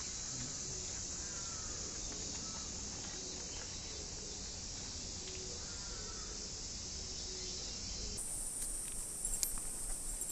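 Cicadas singing in a steady, shrill chorus. About eight seconds in, the sound shifts to a brighter, higher hiss.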